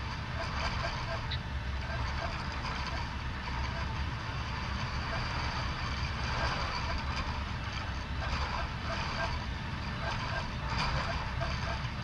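Steady low machine hum under a constant murmur of many distant voices, echoing in a large hall.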